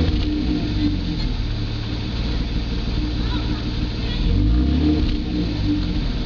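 BMW E34 525ix's inline-six running through its stock, all-original exhaust: steady idle, with one brief rev about four seconds in that rises and falls back to idle.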